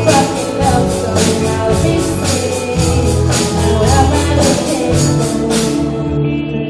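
Live pop band music with sustained chords and sharp percussion hits about two to three times a second. The percussion drops out near the end.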